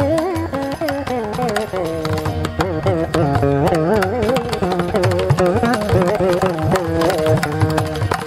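Carnatic veena playing a melody full of wavering, sliding gamakas, accompanied by the strokes of a mridangam and a kanjira frame drum.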